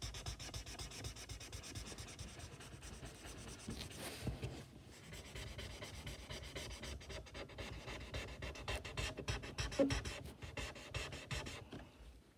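Colouring in on paper: a drawing tool rubbing back and forth over the page in quick, even scratchy strokes, filling in an area.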